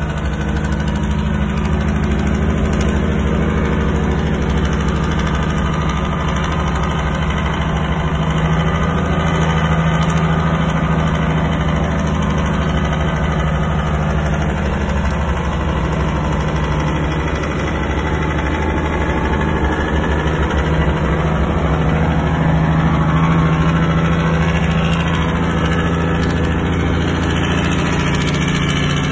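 International cabover truck's diesel engine running steadily downhill, heard from inside the cab as a loud low drone whose pitch dips slightly about halfway through and rises again later.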